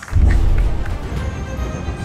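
Music cuts in abruptly with a heavy bass hit just after the start and carries on, bass-heavy and loud: a broadcast transition sting.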